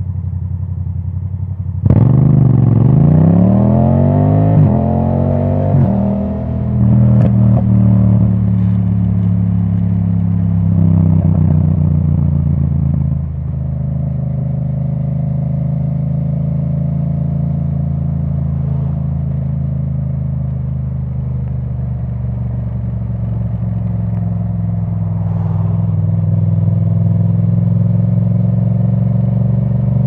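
Yamaha MT-07's parallel-twin engine through an open Akrapovic titanium exhaust with the dB killer removed. It pulls hard about two seconds in, its pitch climbing and resetting through quick upshifts. Around thirteen seconds in the revs drop and it settles into a steady cruise.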